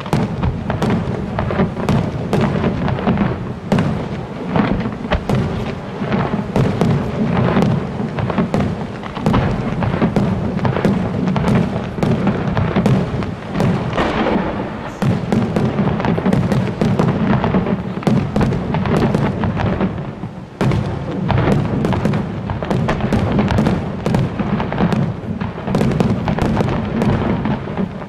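Fireworks display: rapid, overlapping bangs and crackles over a continuous deep rumble, with a brief lull about twenty seconds in.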